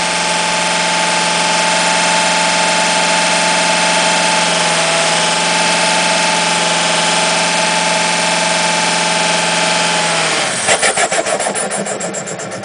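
Ford Excursion's turbocharged engine running steadily with a weird, bad-sounding whine that the owner puts down to the turbocharger. About ten seconds in, the steady sound drops away and turns into a rhythmic pulsing that slows and fades.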